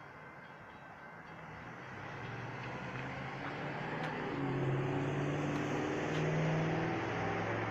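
Road traffic at a railroad crossing: a car engine's hum and tyre noise growing steadily louder, the engine note stepping up in pitch as the traffic pulls away once the crossing gates lift.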